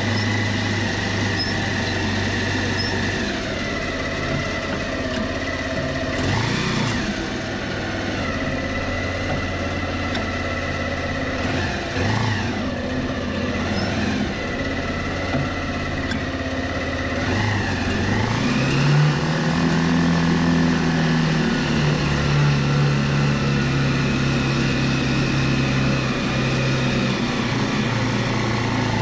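Engine of a homemade three-wheeler trike running while it drives, with a thin high whine alongside. The engine gives several brief blips of revs, then picks up speed about two-thirds of the way through and holds the higher speed.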